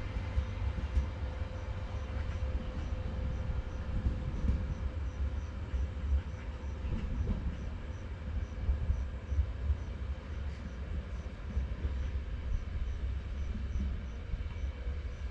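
A train running in the distance: a steady low rumble with a faint steady hum over it.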